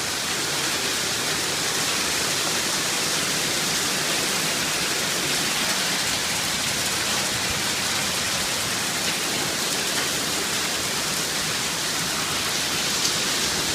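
Heavy hailstorm with rain pelting down: a dense, steady hiss.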